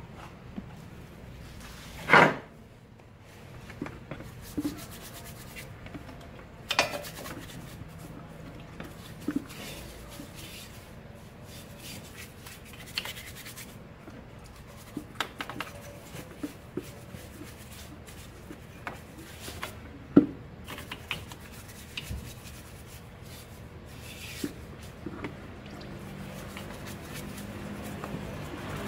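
A brush scrubbing the oily rear drum-brake backing plate and axle end of a Kia Bongo III clean with cleaner. There are scattered light scrapes and drips, and a few sharp knocks, the loudest about two seconds in.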